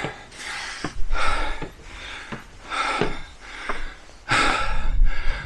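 A man breathing hard and fast, loud breaths in and out about once a second: out of breath after climbing many flights of stairs.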